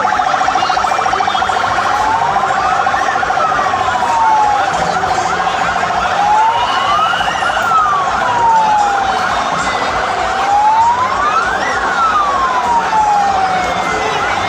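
Siren wailing in slow sweeps, rising and falling about every four seconds, over a loud, dense background of noise. The sound starts abruptly.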